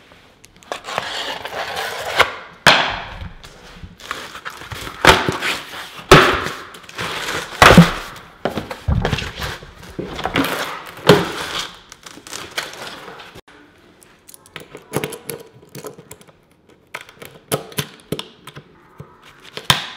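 A cardboard box being ripped open and a white cabinet door slid out of it: cardboard tearing and scraping, with a few knocks and a dull thud about eight seconds in. After that come a run of short sharp clicks as a metal IKEA Utrusta hinge is handled against the door.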